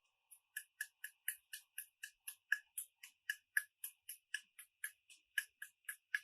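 Rapid, even ticking, about four ticks a second, faint and steady.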